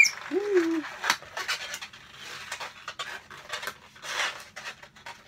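Latex 260 modelling balloons being twisted and tied by hand. A sharp high squeak comes right at the start, then a lower squeak, then scattered rubbing squeaks and small clicks of latex on latex.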